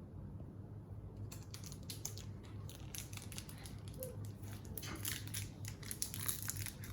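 Crinkling and crackling of a foil Pokémon booster pack wrapper being handled and opened, starting about a second in, over a steady low hum.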